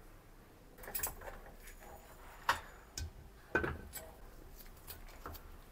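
About half a dozen scattered light metallic clinks and knocks as a bare aluminium motorcycle engine crankcase half is handled and clamped into a bench vise. The loudest knock comes about two and a half seconds in.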